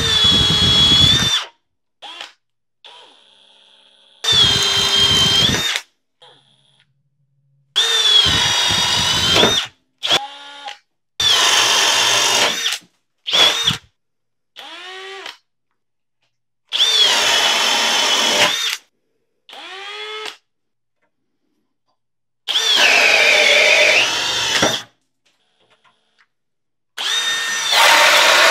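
Hercules brushless cordless hammer drill boring holes through a pressure-treated board with large wood bits. It comes as about ten short bursts of motor whine, each a second or two long, separated by silences, and the pitch sags as the bit bites into the wood.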